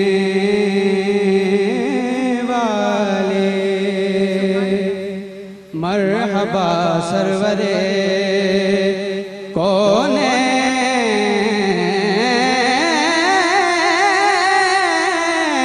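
A man's solo voice reciting an Urdu naat in slow, long-held notes with wavering ornaments, broken by two short breaths, one a little before six seconds in and one about nine and a half seconds in.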